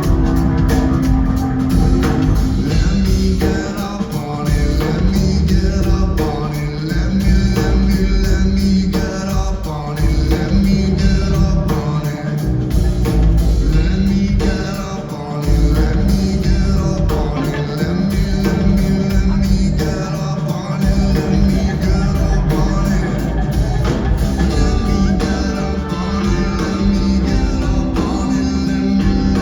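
Rock band playing live: a loud stretch of the song carried by a repeating bass line, with drums and guitar.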